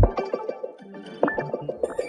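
Instrumental R&B sample-pack music: the bass and full mix drop out at once, leaving a thin run of short, quickly decaying melodic notes as the piece winds down to its end.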